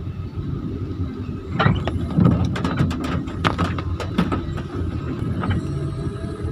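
Car cabin noise in slow traffic: a steady low rumble from the engine and road, with a run of irregular sharp ticks and taps between about two and four seconds in.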